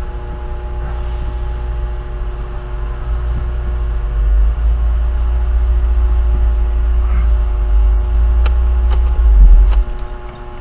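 A vehicle driving: a steady low rumble that builds and is loudest about nine seconds in, with a few sharp clicks near the end.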